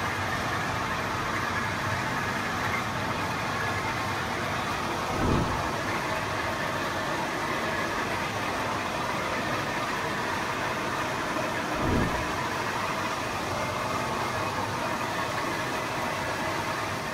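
Industrial mixer running steadily, its paddle churning recycled rubber granules in the drum, with a low dull thump twice, about six seconds apart.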